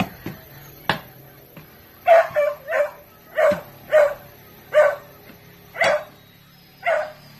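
A dog barking about eight times in a row, short barks spaced roughly half a second to a second apart. Before the barking there are a couple of sharp knocks, which fit digging tools striking the ground.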